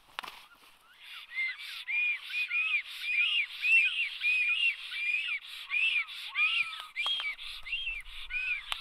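Black storks at the nest giving a quick string of high, wheezy whistled calls, about three a second, during an aggressive clash between the pair. A few sharp knocks come through as well, one just after the start and two near the end.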